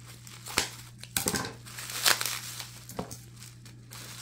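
Plastic bubble wrap crinkling as it is cut open with scissors, with irregular sharp crackles and snips.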